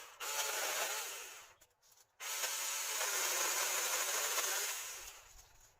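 Cordless mini chainsaw cutting through a tree branch: a cut of about a second, a brief pause, then a longer cut of about three seconds that tails off as it goes through.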